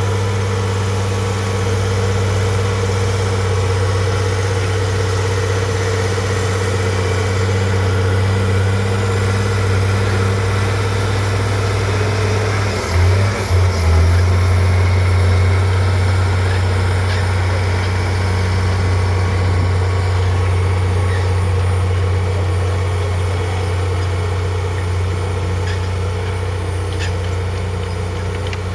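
Heavy diesel construction machine's engine running with a deep, steady drone. It breaks briefly about halfway through and comes back slightly louder.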